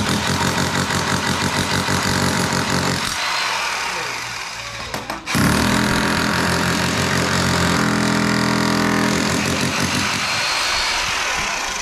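Electric hammer drill breaking up concrete, running for about three seconds, easing off for two, then running again for about six seconds.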